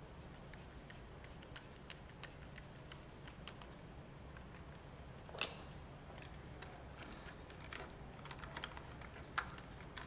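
Faint scattered clicks and light taps of a screwdriver on a three-way light switch's terminal screw and of the switch and its wires being handled and folded, with a sharper knock about five and a half seconds in and another near the end.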